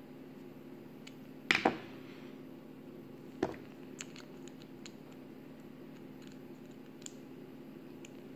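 A few small clicks and knocks of a precision screwdriver working the blade screws on an Andis Slimline Pro Li trimmer as they are tightened. The loudest comes about a second and a half in, another near three and a half seconds, then faint ticks, over a steady low hum.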